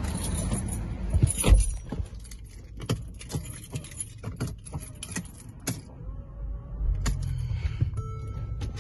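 Car keys jangling and clicking in hand at the steering column, with many small clicks and one heavy thud about a second and a half in. Near the end the Mercedes-Benz ML 350's dashboard chime starts, short electronic tones repeating at two pitches as the ignition comes on.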